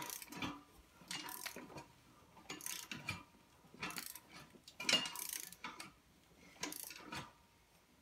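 A Jeep CRD diesel's crankshaft being turned over by hand with a wrench against compression: short bursts of metallic clicking and rattling, roughly once a second, as the wrench is worked.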